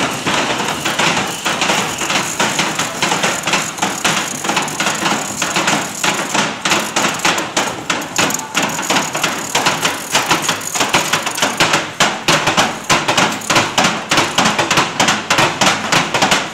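Congregation making noise to blot out Haman's name at the megillah reading: a dense, continuous clatter of ratchet groggers and banging that grows sharper and more distinct toward the end.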